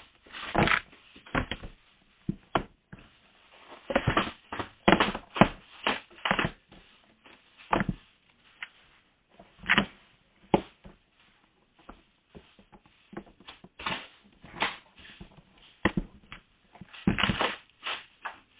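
A parcel and its contents being handled and unpacked: irregular rustling, knocks and clatter, some strokes close together, others a second or more apart.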